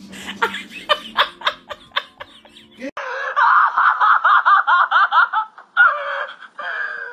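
A black-and-tan dog screaming in loud, high-pitched, wavering cries while held and restrained, breaking off briefly twice. It is preceded by a few seconds of short rapid clicking sounds.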